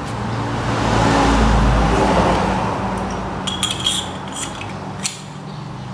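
A low rumble for the first couple of seconds, then small metallic clicks, clinks and scraping from a socket wrench working on a swingarm bolt, with one sharp click near the end.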